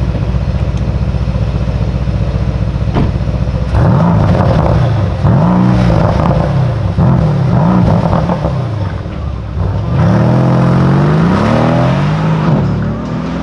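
Mercedes-AMG C63 S Coupé's 4.0-litre twin-turbo V8 idling with a deep steady rumble, a door shutting about three seconds in, then the car pulling away hard, the engine note rising and dropping again and again through gear changes before fading as it goes off.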